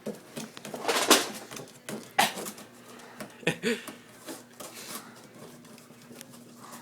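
A box being handled and lifted: a few scattered knocks and scrapes about a second apart, with brief soft voice sounds between them.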